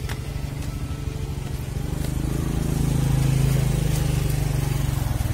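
A motor vehicle's engine running steadily with an even, fast pulse. It grows louder about two seconds in.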